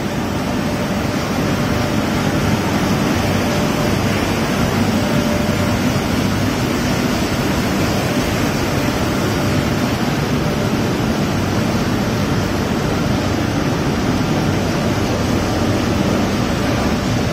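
Gearless central-impression flexo printing press running with a paper web feeding through it: a loud, steady, even machine noise with a faint steady hum, without change.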